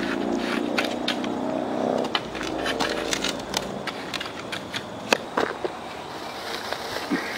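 A shovel scraping and digging into soft, freshly dug dirt and tossing it into a hole, with scattered scrapes and clicks. A steady engine hum runs under it and fades out about halfway through.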